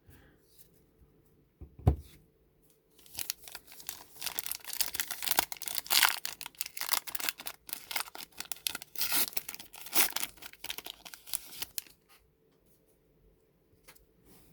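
A single knock about two seconds in, then a baseball card pack's foil wrapper being torn open and crinkled for about eight seconds, stopping near the end.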